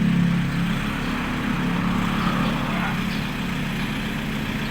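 A vehicle engine running steadily at low speed, a little louder in the first second and then settling.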